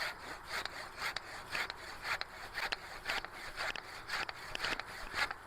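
Hand saw cutting into wood with steady back-and-forth strokes, about two a second.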